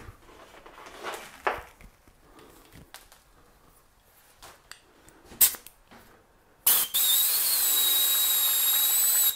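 Airbrush hissing steadily as compressed air and rubbing alcohol blow through it, with a thin high whistle over the hiss; it starts about six and a half seconds in and stops just before the end. Before it come scattered clicks and knocks as the air hose is handled and coupled to the airbrush.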